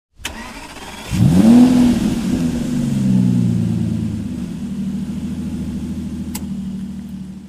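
Car engine starting and revving, its pitch sweeping up about a second in, then easing down into a steady run.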